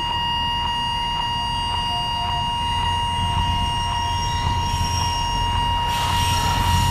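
Level-crossing warning signal ringing in an even beat of about two strokes a second, over the low rumble of the Alishan Forest Railway DL-51 diesel locomotive and its train passing. A brief hiss comes near the end.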